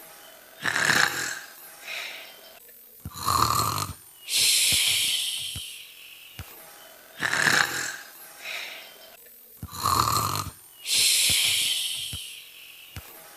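Imitated snoring in a cycle that repeats about every six and a half seconds, twice here: a short rough snort, a deep rattling snore, then a long hissing breath out.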